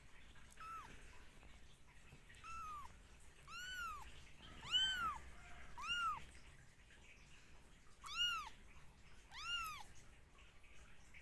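Two-week-old kitten mewing about seven times: thin high mews, each rising and then falling in pitch, the loudest about halfway through.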